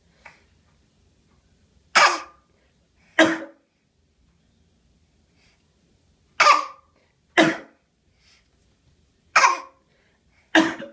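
A baby's deliberate fake coughs, forced out with effort rather than from illness. There are six short coughs in three pairs, the two coughs of each pair about a second apart and a pause of a few seconds between pairs.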